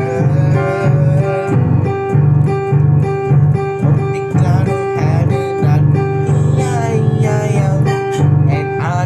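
Instrumental music between sung verses: a guitar-led backing track with a steady beat.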